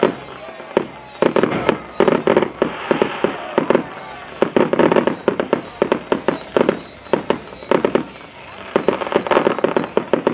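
Fireworks display going off: rapid, dense volleys of sharp bangs and crackling, with brief lulls about four seconds in and again around seven to eight seconds.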